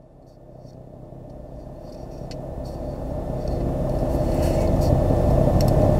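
A low rumble that swells steadily louder throughout, with faint ticks above it.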